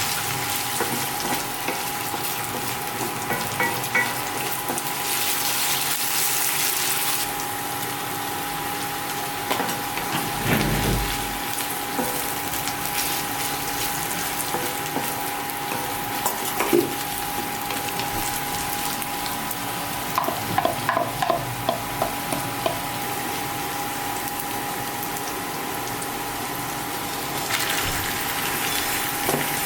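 Food sizzling steadily in hot oil in a kadhai, with a thin steady whine underneath. A spatula clicks and scrapes against the pan about two-thirds of the way through.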